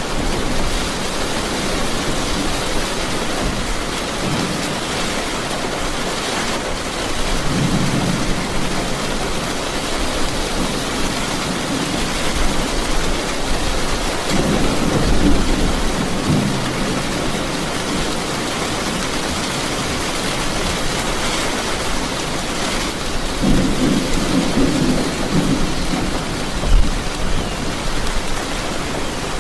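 Steady rain hissing, with thunder rumbling low three times: about a quarter of the way in, around the middle, and again near the end.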